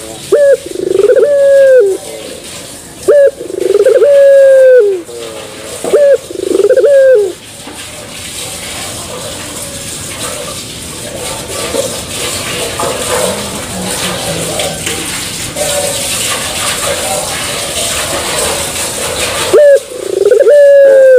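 A three-month-old Barbary dove (puter pelung) cooing: a short note and then a long, drawn-out falling one, repeated about every two seconds. After about seven seconds the cooing stops and a steady hiss fills the gap, and the cooing starts again near the end.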